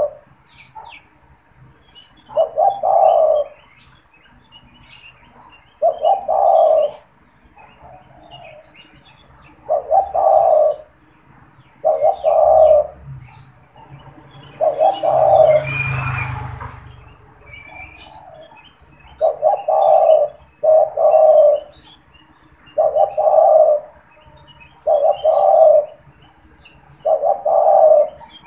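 Spotted dove (tekukur) cooing over and over in its rhythmic song, each phrase of a few low notes repeated every two to three seconds, with small birds chirping faintly behind. About halfway through there is a brief rustling noise between phrases.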